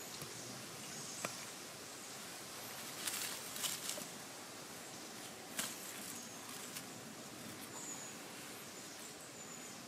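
Quiet woodland ambience with a few light wooden clicks and a short crackling rustle about three seconds in, as a thin stick is picked up from dry leaf litter and wood shavings. Faint high chirps now and then.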